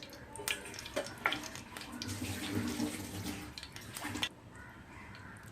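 A kitchen tap runs for about two seconds and is shut off suddenly, after a few short knocks.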